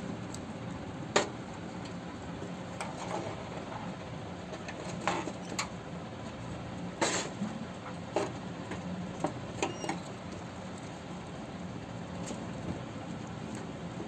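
White rats rustling and scrabbling through straw and leafy greens as they feed, with scattered sharp clicks and a couple of brief high squeaks about two-thirds of the way through, over a steady low hum.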